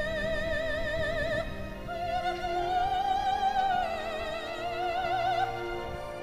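Background music: a high operatic voice sings long held notes with wide vibrato, moving up and down between a few pitches over a soft, steady accompaniment.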